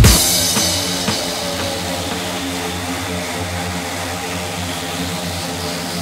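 Music cuts off at the very start, leaving a Stihl MS 660 two-stroke chainsaw running at a steady, unchanging speed.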